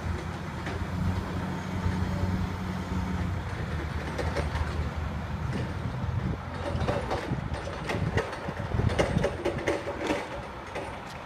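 Truck-mounted crane's engine running steadily as it works the boom, with a low hum throughout and scattered short knocks and clanks in the second half.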